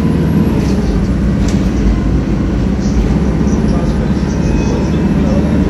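A 2008 ADL Enviro 300 single-deck bus, with a ZF Ecomat automatic gearbox, heard from inside the saloon. Its engine and drivetrain run with a steady drone, and there are a few faint clicks.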